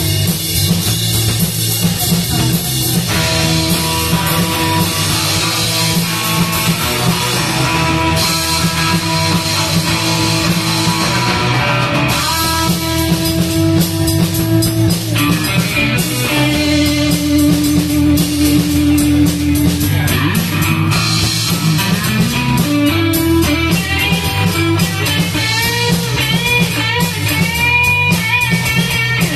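A live rock band playing with electric guitar, bass and drum kit, loud and continuous, with held guitar notes and string bends near the end.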